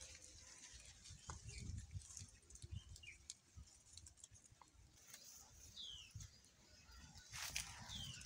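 Faint rustling and soft knocks of hands working through dry leaves and soil while picking mushrooms, with a bird's short falling call twice in the second half.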